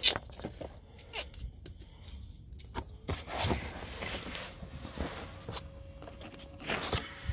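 Irregular rustling and scuffing of someone shifting and crawling over dirt, with scattered small knocks and handling clicks.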